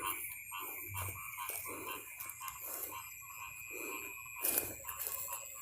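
Night-time outdoor ambience: a steady, high-pitched insect trill runs throughout, with short, irregular croaks from frogs every half second or so.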